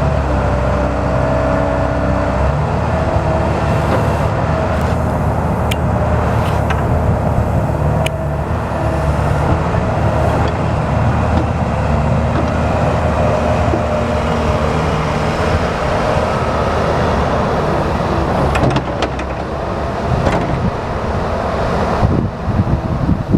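Komatsu PW160 wheeled excavator's diesel engine running steadily, with a higher whine above the engine note and a few sharp clicks.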